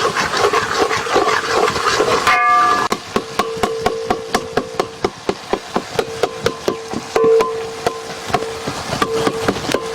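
Chopped tomato sizzling in hot oil in a cooking pot, then a metal ladle clinking against the pot in rapid, regular strokes as the mixture is stirred.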